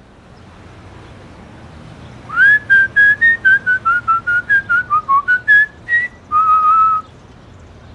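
A person whistling a short tune: starting about two seconds in, a quick run of about fifteen short notes that wander up and down, then one longer held note, over a faint steady hiss.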